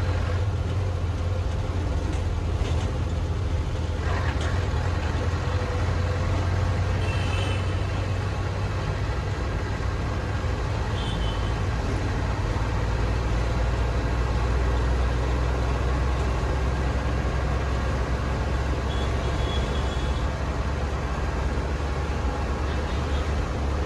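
Steady low rumble of a motor vehicle moving in road traffic, with a few brief high-pitched tones scattered through.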